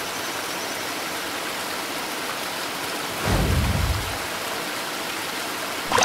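Steady rushing hiss of a waterfall sound effect. A low whoosh swells up a little past halfway and fades within about a second.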